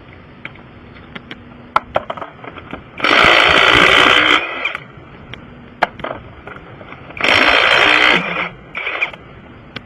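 Impact wrench run in two bursts of about a second and a half each, roughly four seconds apart, with a shorter burst near the end, typical of lug nuts being spun off a wheel; small metallic clicks come between the bursts.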